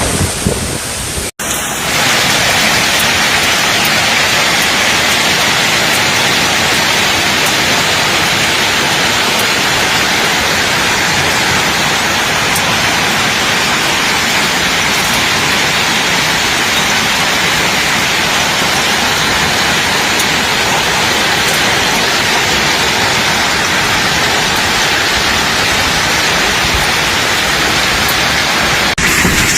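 Heavy storm downpour falling steadily in an even, unbroken rush. Before it settles, the sound cuts out abruptly about a second in, after a short stretch of gusty wind buffeting the microphone.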